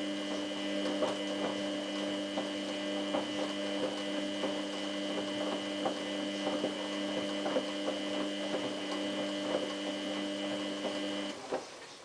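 Samsung WF8804RPA washing machine running with a steady electric hum and faint scattered ticks. The hum cuts off suddenly near the end.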